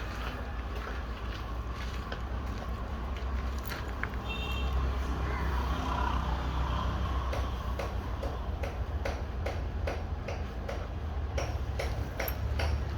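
Cobbler stitching a leather shoe: regular ticking about three times a second, starting around the middle, over a steady low street rumble.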